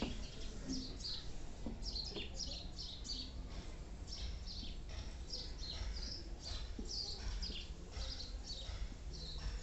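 Small birds chirping, short falling chirps repeated a few times a second, over a steady low hum.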